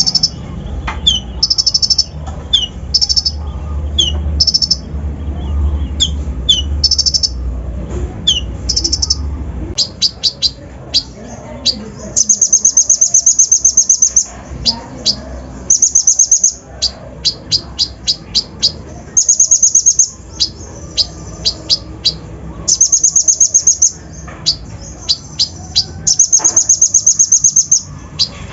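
Kolibri ninja (konin) sunbird singing: sharp high chips and short down-slurred notes, then long, very fast rattling trills of a second or two each, repeated several times with quick chip series in between. A low rumble sits underneath for about the first third.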